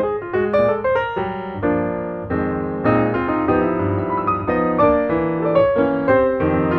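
Background piano music: a quick run of notes over sustained chords.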